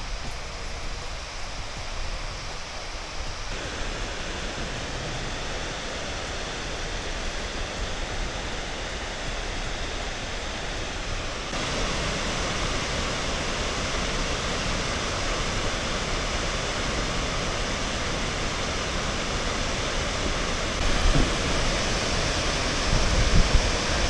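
Ryumon Falls, a broad waterfall 65 m wide and 20 m high on the Egawa river, giving a steady rush of falling water. It steps louder about three seconds in and again about eleven seconds in. Near the end, wind buffets the microphone.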